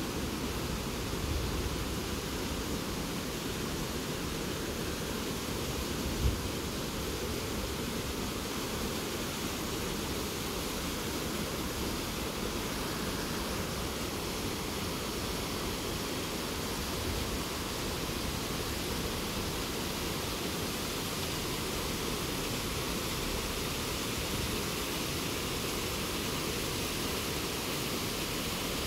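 Steady wind hiss and low buffeting rumble on a phone microphone during a chairlift ride, with a single short knock about six seconds in.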